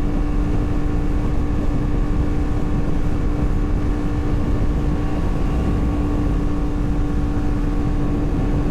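Yamaha MT-10's crossplane inline-four, breathing through a RaceFit Growler X exhaust, running at a steady cruising speed with an unchanging engine note, over heavy low wind rush on the microphone.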